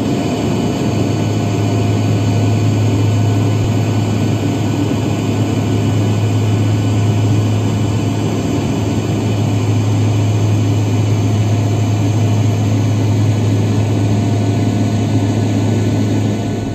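Propeller aircraft's engines droning steadily, heard from inside the cabin: a loud, unchanging low hum with fainter steady whining tones above it.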